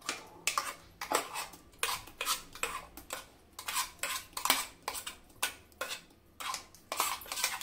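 Steel spoon scraping and clinking against the inside of a stainless steel mixer-grinder jar as it empties thick ground green pea paste: irregular clinks and scrapes, about two or three a second.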